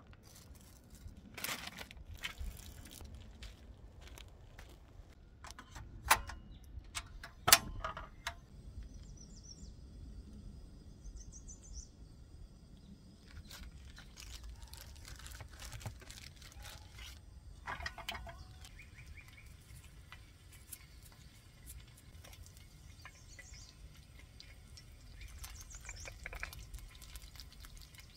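Food being handled at an outdoor camp table: scattered clicks and knocks of items being picked up and set down, the two loudest about six and seven and a half seconds in, with birds chirping faintly in the background.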